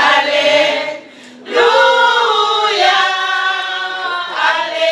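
A small choir singing unaccompanied. The voices break off briefly about a second in, then come back in on a long held chord before starting a new phrase near the end.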